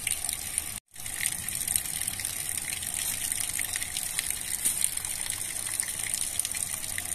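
Water gushing steadily at a dam, an even rushing noise with no change, broken by a brief drop-out to silence just under a second in.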